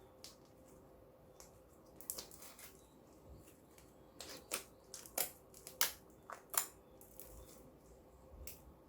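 Clear slime mixed with makeup eyeshadow being worked by hand, giving scattered sharp clicks and pops, the loudest half-dozen between about four and seven seconds in.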